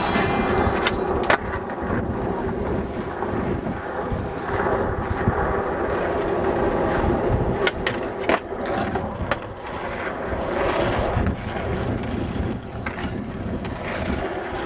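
Skateboard wheels rolling over pavement in a steady rumble, with several sharp clacks of the board hitting the ground.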